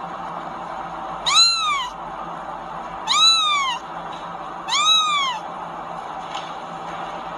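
A cat meowing three times, each meow a short, high call that rises and then falls in pitch, spaced a little under two seconds apart, over a faint steady background hum.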